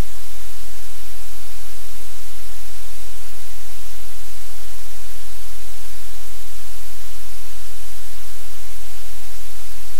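Loud, steady static hiss with a low hum underneath, unchanging throughout; no distinct event stands out above it.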